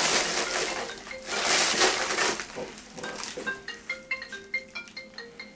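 Rustling handling noise for about the first two seconds, then a mobile phone ringing with a marimba ringtone of quick stepped notes, ringing through the end.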